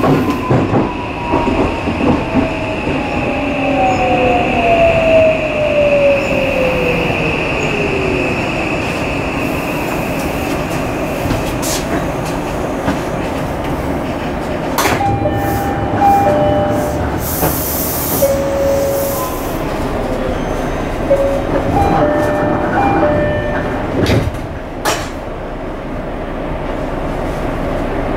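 Odakyu 5000 series electric train heard from inside the passenger car, running with steady wheel and rail noise. For the first several seconds the traction motor whine falls steadily in pitch as the train slows. Later come short steady inverter tones that shift in steps, with a few sharp clicks over rail joints, as it brakes into a station.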